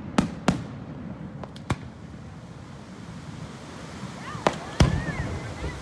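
Fireworks going off: a few sharp bangs in the first two seconds, then two more about four and a half seconds in, the second of these the loudest.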